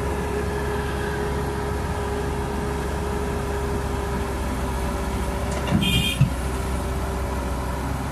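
Caterpillar 312B hydraulic excavator's diesel engine running steadily with a steady whine as the loaded bucket swings toward the truck. A brief, sharp sound comes about six seconds in.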